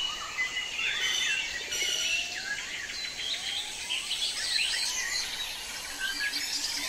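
Several birds chirping and calling over steady outdoor background noise.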